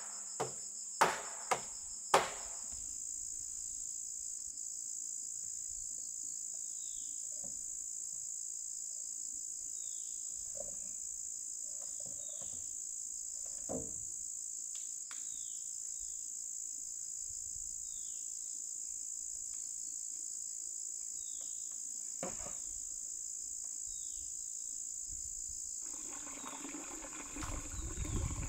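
Four sharp hammer blows in the first two seconds, then a steady high drone of insects with short falling chirps every few seconds. A low rushing noise starts near the end.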